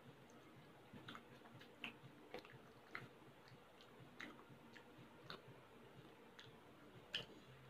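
Faint mouth sounds of a person chewing baked mussels and rice: soft wet clicks and smacks, irregular, about one or two a second.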